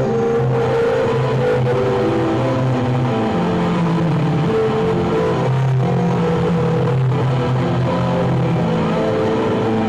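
Heavy metal music led by a heavily distorted electric guitar, playing held notes that change every second or so over a steady low note.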